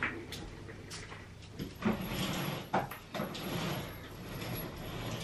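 Someone moving about a room and handling things: a few sharp knocks and clicks, like a chair or cupboard being moved, with rustling in between.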